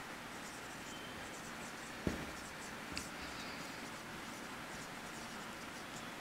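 Faint marker pen writing on a whiteboard in many short strokes. A single sharp knock sounds about two seconds in.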